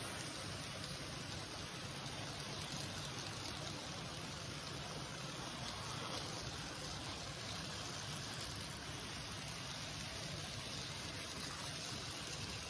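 Model railway goods wagons rolling past on model track, a steady even rattling noise of small wheels running on the rails.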